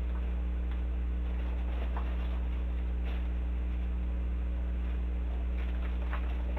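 A steady electrical mains hum, with a few faint rustles and light taps of a paper lantern being handled about two and three seconds in and again near the end.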